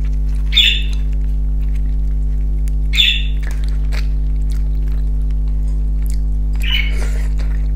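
Eating sounds: fried fish pulled apart by hand, with faint crunchy clicks and three short, squeaky mouth smacks or finger-sucks, about half a second, three seconds and seven seconds in. A steady low electrical hum runs underneath.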